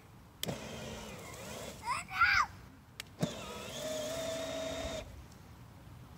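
Electric drive motor of a battery-powered kids' ride-on motorcycle whining in two runs of about two seconds each, each starting with a click as the throttle is pressed, pushing the bike through dry leaves. A brief, loud rising-and-falling squeal about two seconds in.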